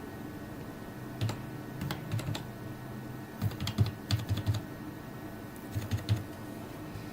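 Typing on a computer keyboard: short runs of keystrokes, a phone number being entered, in several bursts with brief pauses between them.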